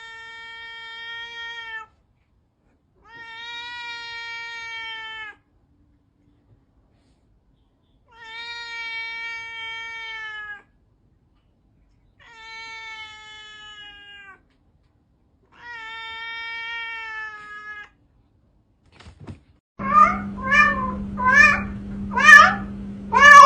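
A cat giving five long, drawn-out meows of about two seconds each, evenly spaced with silence between, each holding one pitch. Near the end the sound changes to short, sharp meows in quick succession over a steady low hum.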